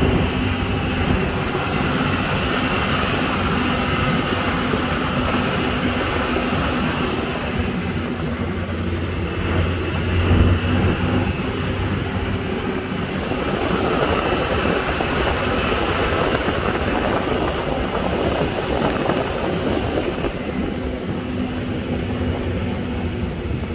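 Amphibious duck boat's engine running steadily under way, heard from aboard as a continuous drone that swells briefly about ten seconds in.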